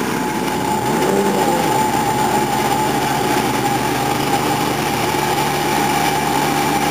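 Two-stroke 750 jet-ski engine in a small aluminium jet dinghy running steadily at a fast idle, its jet pump pushing out water. Engine pitch rises briefly about a second in.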